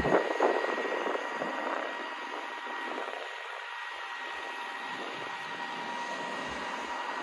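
Crane truck running with its hydraulics, a steady thin whine over an even hiss, with some rougher noise in the first second or two.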